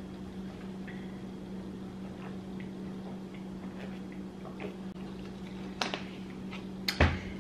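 Drinking water from a plastic bottle: faint gulps and swallows over a steady low hum, then a couple of sharp plastic clicks near the end as the bottle cap is handled.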